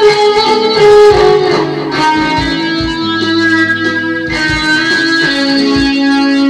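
Electric guitar playing a melodic line of held single notes, moving from note to note and ending on one long sustained note. Short low thumps sound underneath now and then.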